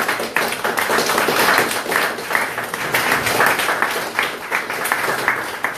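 Audience applauding, with many hands clapping at once.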